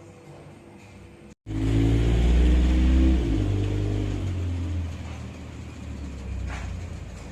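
After an abrupt cut about a second and a half in, a motor vehicle engine runs loudly, its pitch rising slightly and then easing off a little after about three seconds.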